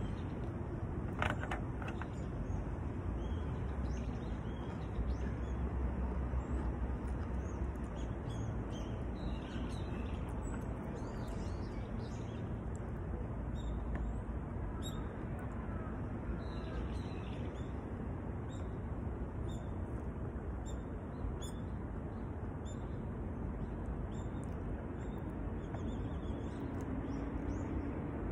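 Outdoor park ambience: a steady rushing background with small birds chirping faintly through the middle stretch. There is a single light click about a second in.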